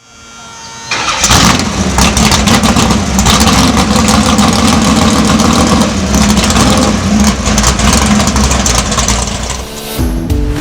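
A car engine catching about a second in, then running loud and rough for several seconds before dropping away near the end.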